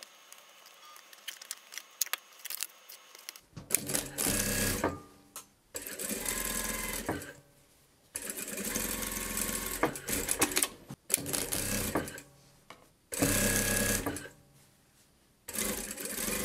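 Industrial lockstitch sewing machine stitching grey knit fabric in short runs of one to three seconds, stopping and starting about six times. Before it starts, a few soft clicks and rustles of fabric being handled on a cutting mat.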